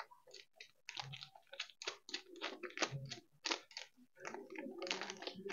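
Faint, irregular small clicks and crackles of hands tightening a screw on the top rail of a steel-frame baby cradle.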